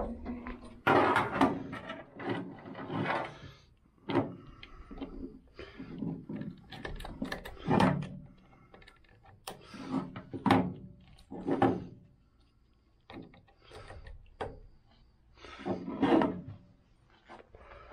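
Irregular knocks, rubs and clattering of hands at work, scattered through with short pauses, as a handheld battery tester's clamps are clipped onto a van's battery.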